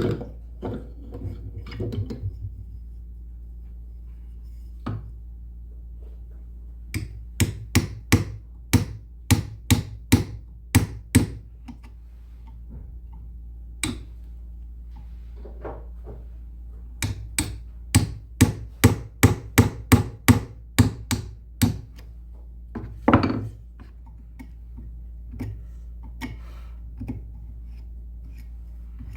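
Hammer blows on wood: a few scattered knocks, then two runs of quick, regular strikes, each a few seconds long.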